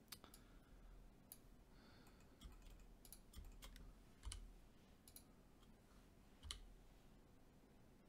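Faint, scattered clicks of a computer mouse and keyboard keys, a dozen or so at uneven intervals, over quiet room tone.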